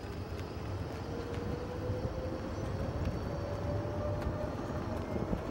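Golf cart driving along: a steady low rumble of the ride, with a faint whine rising slowly in pitch through the first four seconds or so.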